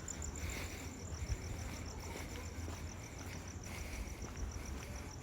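Cricket chirping at night, a steady high-pitched trill pulsing several times a second, over a faint low rumble.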